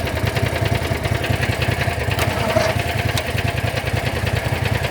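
A small engine running steadily at idle with a fast, even pulse. Two faint clicks come about two and three seconds in.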